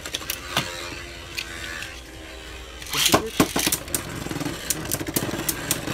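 Beyblade Burst tops in a plastic stadium: Mirage Fafnir spinning with a steady whir and a few clicks, then a second top, Tempest Dragon, launched about three seconds in with a loud rip of the launcher. After that the two tops spin together, with frequent sharp clicks as they knock against each other.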